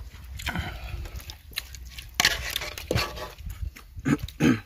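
Clicks, taps and rustles of eating rice by hand from metal bowls, with a louder scraping rush about two seconds in and two short pitched cries near the end.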